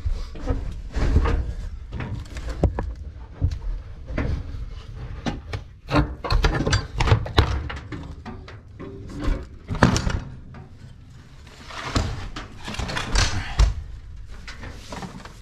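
Irregular knocks, thumps and scrapes of a person climbing inside a silo chute and handling the silo doors.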